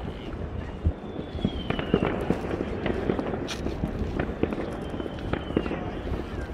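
New Year's fireworks going off: a dense run of pops and bangs over a steady noisy background, with high whistles gliding slowly down in pitch, once about a second in and again past the middle.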